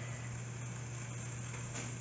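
A steady low hum over an even background hiss, with a faint soft tick near the end.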